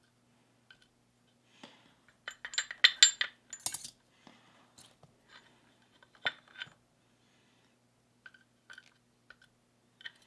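Small metal clicks and clinks from handling a disassembled Abus 72/40 padlock, its pins and the tools. They come in a quick flurry about two to four seconds in, one more about six seconds in, and a few light ticks near the end.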